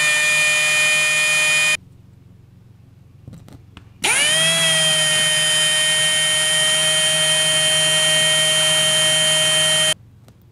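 Power drill with a carbide glass drill bit boring into the outer glass layer of a windshield at a rock chip, opening it to take repair resin. The motor whines steadily and stops about two seconds in. After a short pause it spins up again, rising in pitch, then runs steady until it cuts off near the end.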